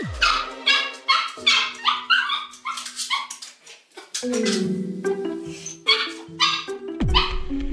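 A small dog crying at a door in a rapid run of high-pitched yelps and whines, two or three a second, the distress of a dog with separation anxiety left alone. Background music comes in about halfway through, under further cries.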